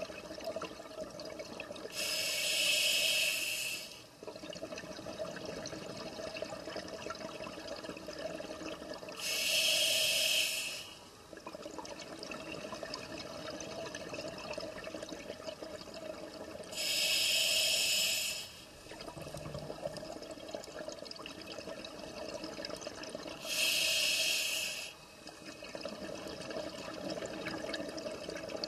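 Scuba diver breathing through a regulator underwater: four loud hissing breaths of about two seconds each, roughly seven seconds apart, over a steady watery rush.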